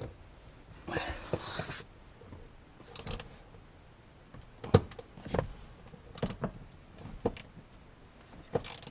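Tools working a front seat mounting bolt as it is tightened back down: a short scraping burst about a second in, then a handful of separate metallic clicks and knocks.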